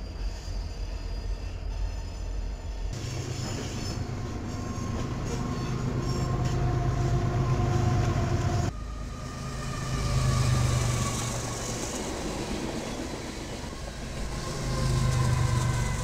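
Freight trains rolling past: diesel locomotive rumble and the steady noise of rail cars on the track. The sound changes abruptly twice as one clip gives way to another, with steady high-pitched tones from the train above the rumble in the later parts.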